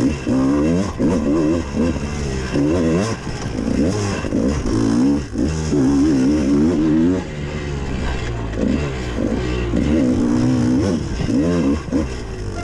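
Dirt bike engine revving up and down continuously as the throttle is worked, its pitch rising and falling every second or so, heard close up from the rider.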